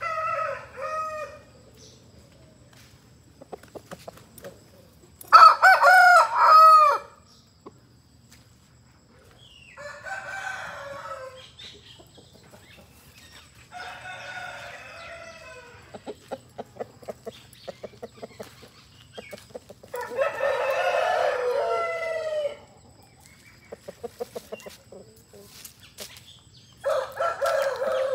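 Aseel roosters crowing again and again, about six drawn-out crows spread through the stretch, the loudest about five seconds in.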